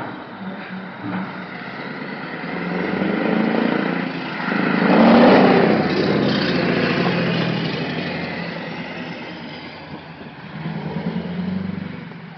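Scania R500 V8 diesel truck pulling a low-loader trailer drives past close by. The engine sound swells to its loudest about five seconds in and then fades as the truck pulls away.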